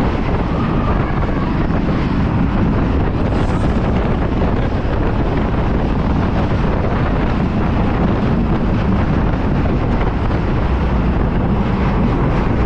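Steady wind rush on the microphone over the rumble of an Arrow Dynamics steel roller coaster train running along its track.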